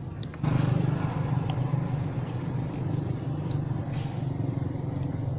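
Small motorbike engine idling with a steady low hum. It comes in suddenly about half a second in.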